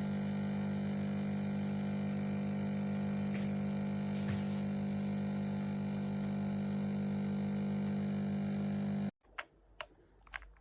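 Steady electric buzzing hum, one low pitch with overtones, that cuts off abruptly about nine seconds in and is followed by faint clicks.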